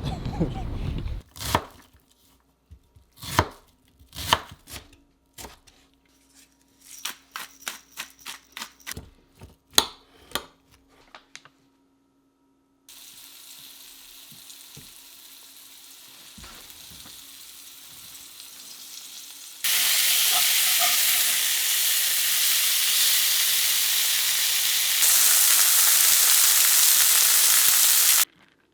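Brief wind on the microphone, then a knife chopping on a cutting board in irregular strokes. After that comes battered fish frying in hot oil, a steady sizzle that jumps louder in two sudden steps.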